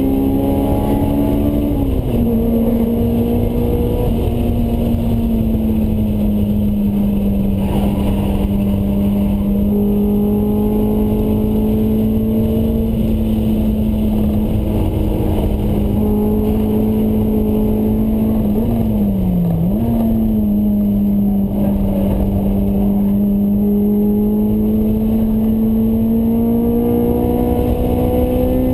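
Honda S2000's four-cylinder engine through a Mugen exhaust at high revs on track, heard from inside the cabin. The note holds a mostly steady pitch, dips briefly about two-thirds of the way through and recovers, then climbs near the end.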